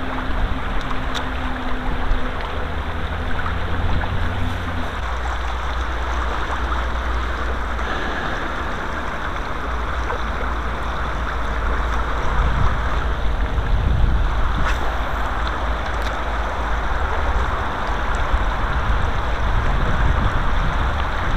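Steady rushing of river water flowing over stones, with a low rumble of wind on the microphone. A low steady hum sounds for the first five seconds, then stops.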